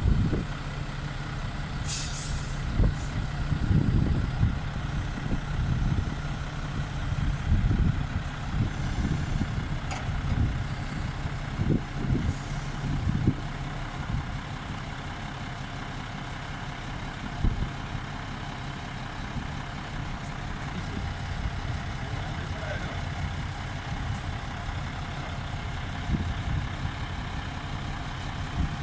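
Heavy engine running steadily, with repeated knocks and thumps over the first half and a couple of short hisses.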